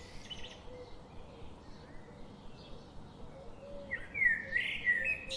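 Bird chirping faintly, with a louder run of quick chirps about four seconds in.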